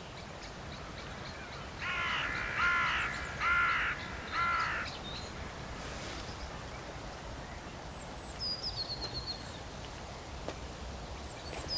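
A bird gives four loud calls in quick succession a couple of seconds in. Later a small bird makes a short run of high, falling chirps, over a steady low outdoor background.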